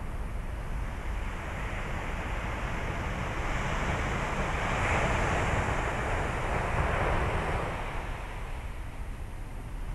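Sea surf washing onto a beach: a steady hiss of waves that swells to a peak about five seconds in and then ebbs, with a low rumble of wind on the microphone.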